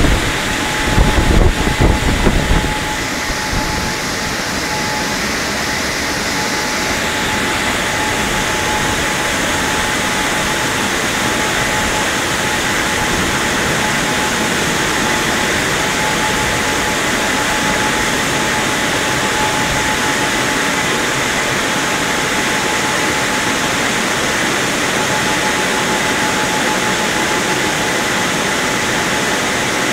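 WashTec SoftCare2 Pro car wash dryer blowers running: a steady, loud rush of air with a faint whine held through it. A few heavy low knocks come in the first three seconds.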